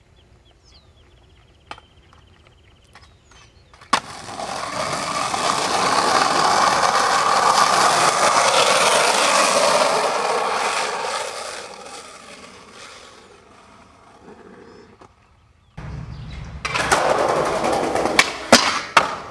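Skateboard wheels rolling on rough asphalt. A sharp clack about four seconds in starts the rolling noise, which swells as the board picks up speed and fades away over several seconds. Near the end the board rolls on concrete again, with several sharp clacks of the board striking.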